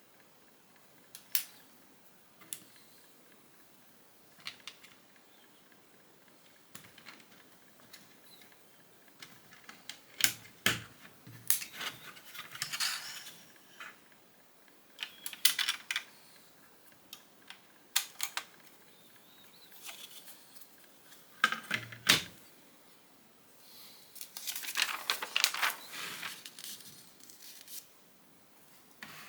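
Plastic Lego bricks clicking and clattering as pieces are picked up and pressed together, in separate sharp clicks. There are two longer spells of rattling, as loose pieces are sorted through, about twelve seconds in and again near the end.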